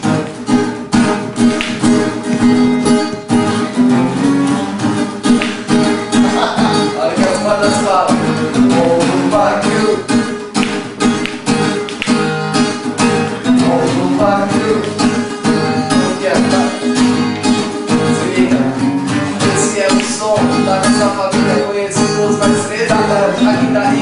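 Acoustic guitar music with a singing voice over it, playing continuously.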